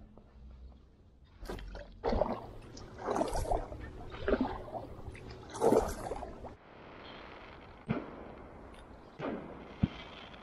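Water splashing and dripping beside an inflatable packraft as a small zander is let go and the paddle is worked, in uneven bursts, followed by a few sharp knocks in the last few seconds.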